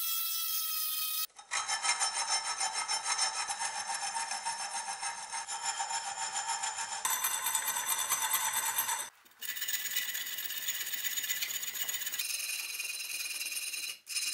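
Briefly at the start, a rotary tool's small abrasive stone whines steadily against the steel blade. It cuts off, and then a hand file rasps back and forth in quick strokes along the notched spine of the steel cleaver, which is clamped in a vise. The filing has a metallic ringing and is broken by several sudden cuts.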